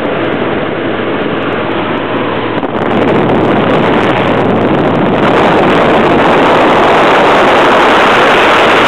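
Engine drone and wind rush of an X-Air microlight in flight, heard from the cockpit as a steady, dense noise. It grows louder about three seconds in and again around five seconds in.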